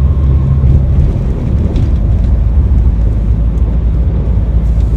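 Bus engine running under load, a heavy continuous low rumble mixed with road noise, its note changing about a second in.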